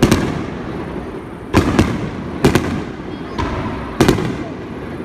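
Aerial fireworks shells bursting: a run of sharp booms, several coming in quick pairs, each trailing off into a rolling echo.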